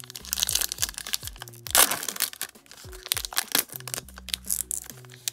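Shiny foil wrapper of a trading-card pack crinkling as it is torn open by hand, with one louder rip about two seconds in. Background music with steady bass notes plays underneath.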